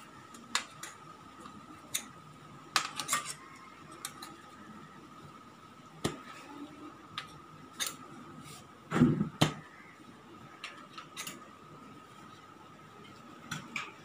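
Metal tyre lever clinking and scraping against a bicycle's steel rim as the tyre bead is levered back over the rim edge: scattered sharp clicks, with a louder double knock a little past the middle.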